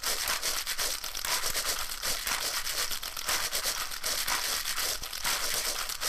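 Continuous dense crinkling and crackling noise, thick with fine rapid clicks.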